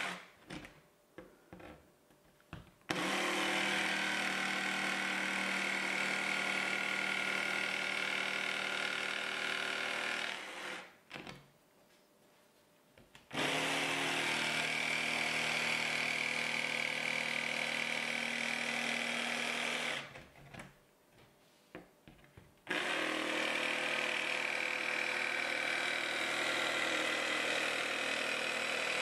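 Makita 18V cordless jigsaw cutting a socket cutout in an MDF-backed splashback board. It runs in three long spells with short pauses between them, the first starting about three seconds in.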